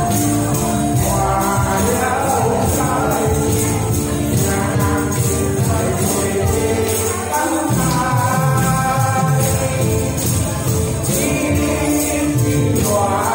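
A man singing into a microphone over backing music, with tambourines shaken in a steady rhythm along with the beat.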